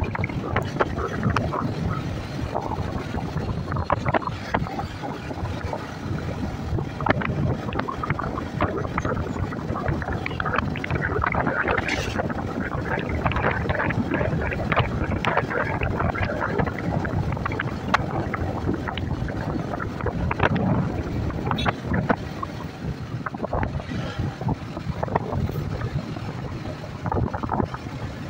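Wind buffeting the microphone of a moving motorcycle, with the engine and road noise running underneath in uneven gusts.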